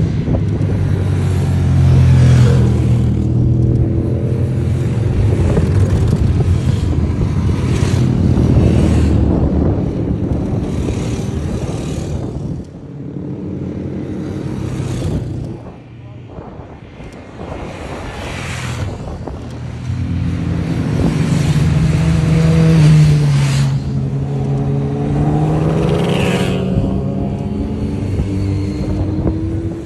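Motorcycles riding past one after another at speed, each engine note dropping in pitch as it goes by. A short lull about halfway through before the next group arrives.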